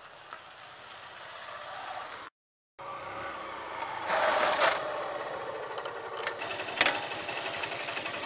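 Motorcycle engine running and getting louder as it approaches. After a brief cut it runs close by, swelling loudest for a moment about four seconds in. A couple of sharp clacks come near the end.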